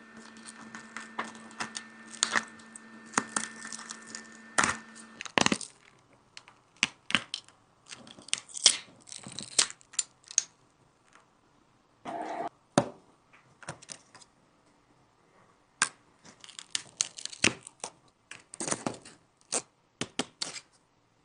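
Hand work on a cracked iPhone: many sharp clicks, taps and scraping, crackling and tearing sounds of tools against glass and the phone's frame. A steady hum runs under the first five seconds and then stops.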